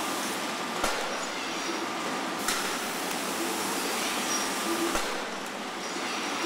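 Steady mechanical running noise from a robotic carton palletizing cell, with its roller conveyors and NACHI robot arm in motion. A few sharp knocks fall a second or two apart.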